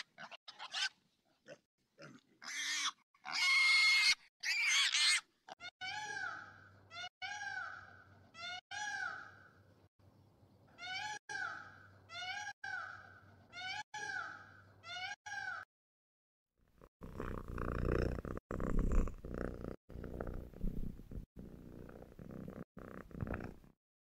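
Piglets squealing in the first few seconds. Then an Indian peafowl gives a string of about a dozen short, arching calls. Near the end comes a low, rough growl.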